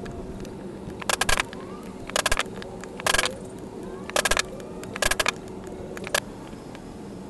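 A steel leather punch being hammered through leather into a wood block: six short flurries of sharp taps, about one a second, the last one weaker.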